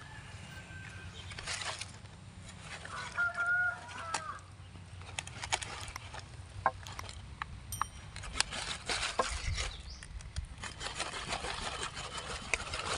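A dull curved knife hacking and pressing through a chicken carcass on a bed of leaves, giving scattered sharp clicks and cracks. About three seconds in, a live chicken gives a short call.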